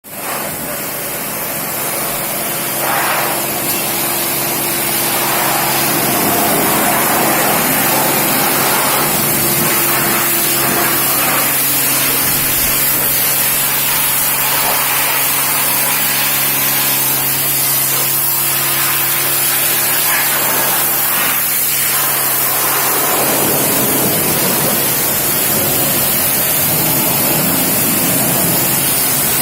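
High-pressure water washer spraying in a steady loud hiss, with a steady motor hum underneath that stops about three-quarters of the way through while the spray hiss carries on.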